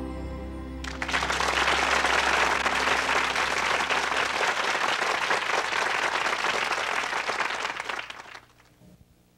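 The last held chord of a gospel song ends about a second in, and an audience breaks into applause that runs for about seven seconds, then fades out.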